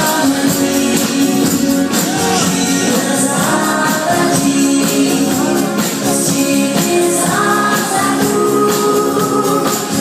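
Men singing together to an acoustic guitar, with a tambourine shaken in time throughout.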